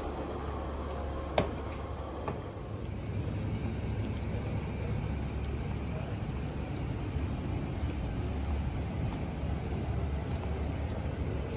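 Steady low rumble of a motor vehicle running, with a sharp click about a second and a half in and a fainter click about a second later.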